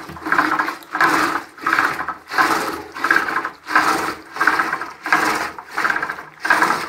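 Wooden churning stick spinning back and forth in a steel pot of curd, driven by a rope pulled alternately: a rhythmic swish and slosh of churning, about three strokes every two seconds, the stage where curd is churned into butter.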